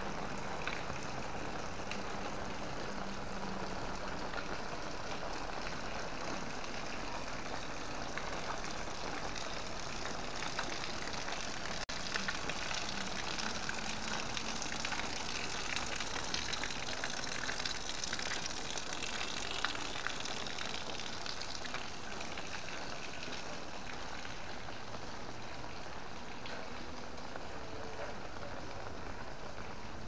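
Heavy rain falling steadily, a dense hiss of countless drop hits at an even level.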